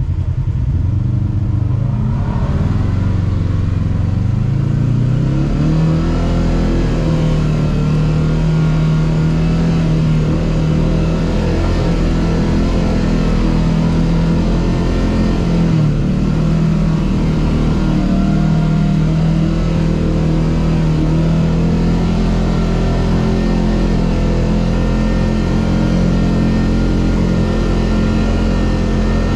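Kawasaki KRX 1000 side-by-side's parallel-twin engine revving up as it pulls away over the first few seconds, then running steadily under throttle on a steep dirt trail, with a brief dip in revs about halfway.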